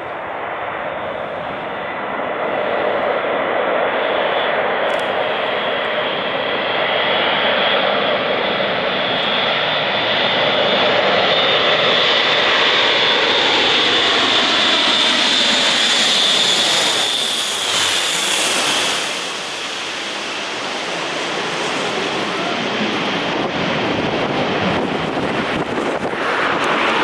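Airbus A400M Atlas's four TP400-D6 turboprop engines passing low overhead: a swelling drone with a steady high whine that drops in pitch as the aircraft goes by, about two-thirds of the way through, then fades briefly before building again.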